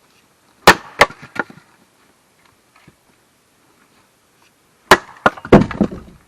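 Axe blows splitting firewood: two sharp strikes about a second in, then another flurry of strikes near the end as the wood cracks apart with a longer clattering rattle.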